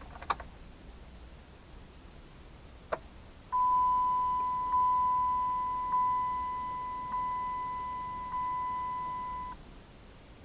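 Dodge Caliber's in-car warning chime sounding five times, a steady electronic tone re-struck a little over a second apart, after two sharp clicks.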